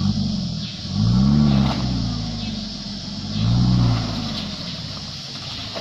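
Off-road 4x4's engine revving in three surges, the longest and loudest about a second in, while the vehicle strains, heeled over in a deep muddy rut.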